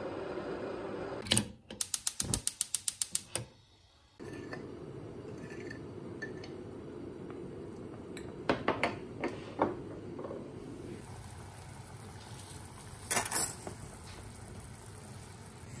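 T-fal Aprecia electric kettle rumbling at the boil, then a sharp click as its switch turns off, followed by a rapid run of about a dozen clicks lasting a second and a half. After a short gap, a low steady hiss with a few light clinks, and a brief rustle near the end as dry spaghetti goes into the pot.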